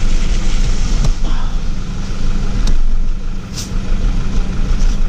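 A vehicle engine idling steadily, with a few light clicks and one sharper click about three and a half seconds in.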